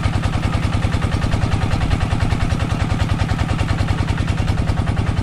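Kubota NS80 single-cylinder diesel engine running an irrigation water pump: a loud, fast, even chugging knock, one beat per firing stroke.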